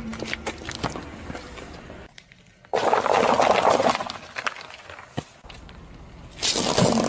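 A car tyre rolling over and crushing small objects on pavement: rapid crackling and snapping, with a loud crunch about three seconds in and another near the end.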